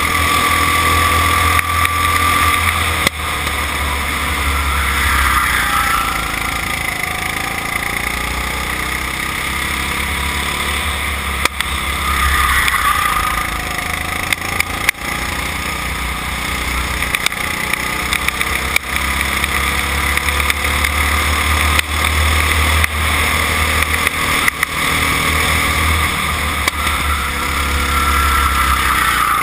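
Go-kart engine heard on board through a lap at speed, its pitch dropping as the kart slows for corners and climbing again as it accelerates out, several times over, above a steady low rumble.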